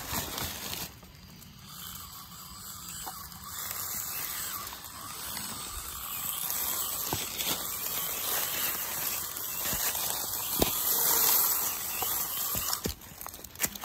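Axial SCX24 micro RC crawler's small brushed electric motor and gearbox whining with a high hiss as it crawls over rock and dry leaves, growing louder through the middle, with a few sharp clicks of the tyres and chassis on stone. Footsteps crunch in dry leaves in the first second.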